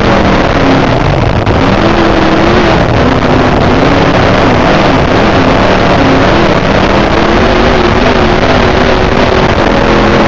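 Dirt modified race car's V8 engine heard from inside the cockpit, loud and distorted, its revs falling and rising several times as the throttle comes off and on, over heavy wind and track noise.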